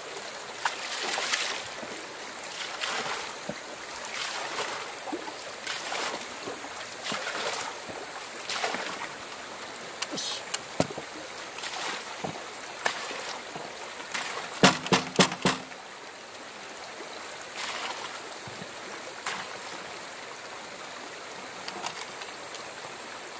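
Water sloshed and poured down a small aluminium sluice box standing in a bucket, splashing in repeated surges about every second and a half as the sluice's riffles are rinsed clean of the gravel and gold concentrate they caught. About two-thirds through comes a quick run of five sharp knocks, and a stream flows steadily underneath.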